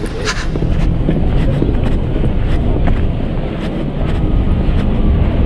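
Wind buffeting the microphone of a moving bicycle, a loud steady rumble, with a few light clicks mixed in.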